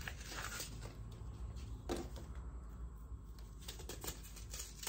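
Light handling noises of paper seed packets being sorted and opened: scattered soft clicks and rustles, with a sharper click about two seconds in and a quick run of them near the end.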